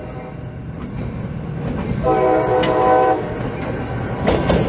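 CSX diesel freight locomotive passing close by with a steady rumble. Its horn sounds one long blast about two seconds in, and near the end the wheels clack over the rail joints.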